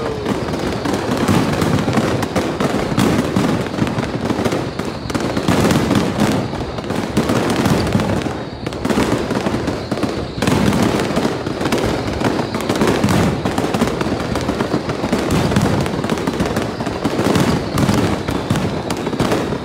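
Aerial fireworks shells bursting in a dense barrage, many bangs in quick succession with no pause.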